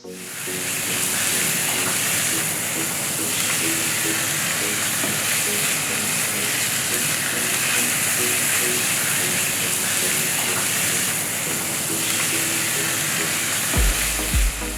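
Food sizzling steadily in hot oil in a pan, over light background music. Heavy bass beats of the music come in near the end.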